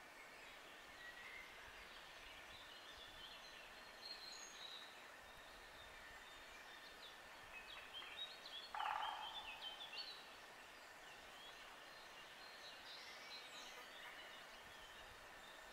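Faint woodland birdsong: many small birds giving short chirps and phrases. About nine seconds in comes one louder, rapidly pulsed call lasting under a second.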